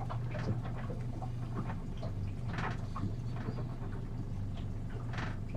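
Steady low hum with scattered light clicks and rustles, the clearest about two and a half and five seconds in.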